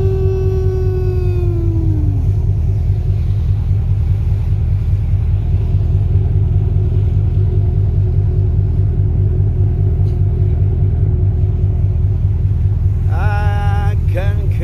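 Steady low rumble of a ship under way, its engines and the rush of wind and water on the open deck. A voice holds a long note that slides down and stops about two seconds in, and a voice is heard again near the end.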